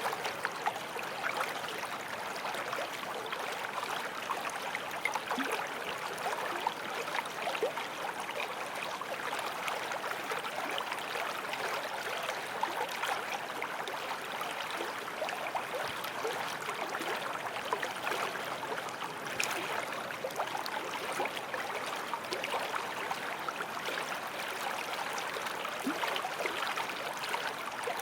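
Running creek: a steady babble of water over stones, dotted with many small splashes and gurgles.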